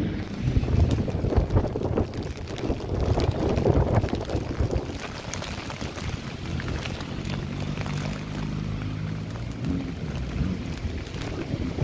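Gusty wind buffeting the microphone, loudest in the first few seconds. Underneath runs a low, steady hum that comes up more clearly in the second half.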